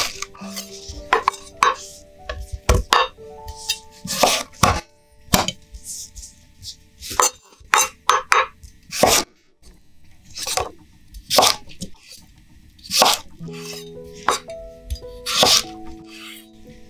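Carrot being cut with a Seki Magoroku kitchen knife on an olive-wood cutting board: the blade crunches through and knocks on the board in irregular strokes, roughly one every second or so, some much louder than others. Soft background music with sustained notes plays throughout.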